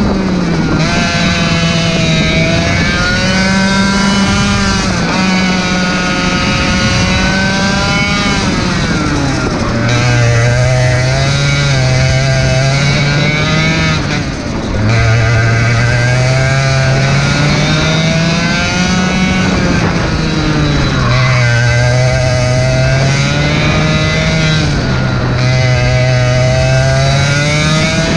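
Racing kart engine heard from on board at full throttle. Its pitch climbs steadily along the straights and drops sharply each time the driver lifts and brakes for a corner, several times over.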